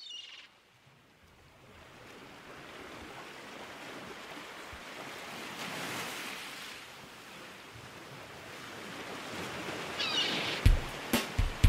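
Ocean surf washing in, swelling and easing, with brief high chirps at the start and again about ten seconds in. Several sharp hits come in the last second.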